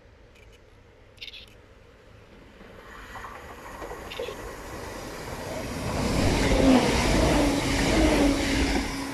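A Southern passenger train approaching and running through the platform at speed without stopping. A rushing rumble builds over several seconds and is loudest as the carriages pass, with a steady hum running through it.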